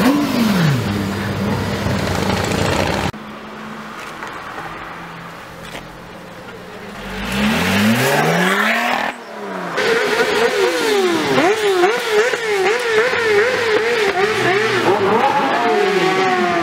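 Supercar engines revving, cut together from separate clips with abrupt changes. About seven seconds in, an engine climbs steadily up through the revs, and in the last part rapid, repeated rev blips rise and fall in quick succession.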